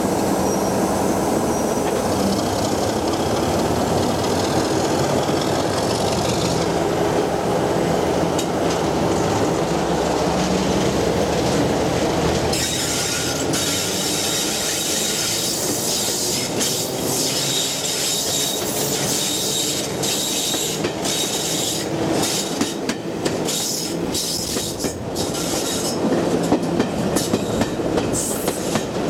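Wheels of a heritage passenger coach rolling over the track, heard through an open droplight window as a steady rumble. About halfway through, a thin wheel squeal joins in, along with a run of sharp clicks.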